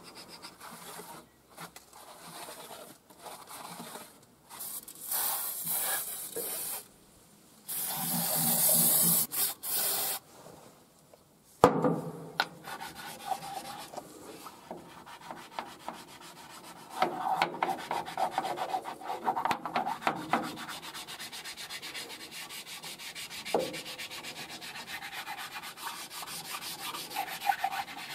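Old head-gasket residue being cleaned off the deck of a Nissan SD22 four-cylinder diesel block: first uneven strokes of a hand scraper, then a flat abrasive block rubbed quickly back and forth across the metal. A single sharp click comes just before the middle.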